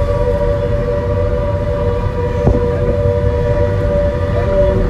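Dam warning siren sounding a steady two-tone wail that signals the flood gates are being opened, over the low rumble of a moving vehicle. A single knock about halfway through.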